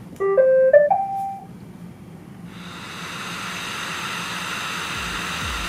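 Robot vacuum's start-up chime, a short rising run of electronic notes, then its motor and brushes spinning up to a steady whir with several high whining tones.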